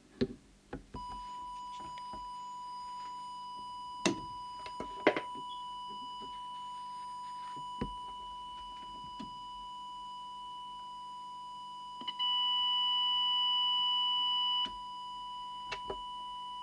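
Steady single-pitched test tone from an audio oscillator, the modulating tone for setting a CB radio transmitter's FM deviation. It starts about a second in and grows louder for about two seconds near the end. A few sharp clicks come in the first few seconds.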